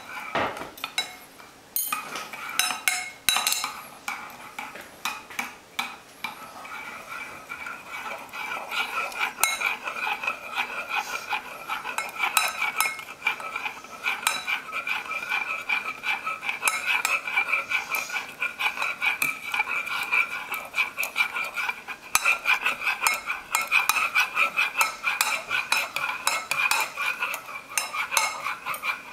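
A metal spoon stirring rapidly in a small enamel pot, clinking against its sides in a fast, continuous run while the pot rings with a steady tone; the stirring grows louder from about eight seconds in. It is sodium acetate being stirred into hot water to dissolve it.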